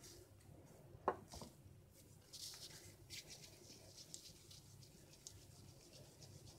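Faint rustling and rubbing of hands working soft cookie dough, scooping it from a glass bowl and rolling it into balls between the palms, with one sharp knock about a second in.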